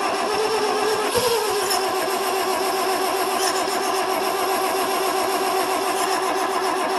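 Starter cranking the Satoh S650G tractor's Mazda 1.0 L four-cylinder gasoline engine steadily without it catching, a sign of no spark, as the owner finds right afterwards.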